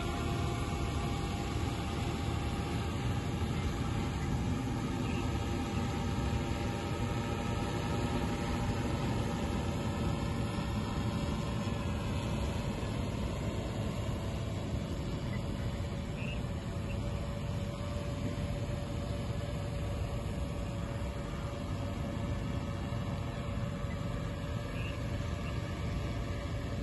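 Multirotor agricultural spray drone's propellers humming steadily in flight, a few steady tones over a low rumble.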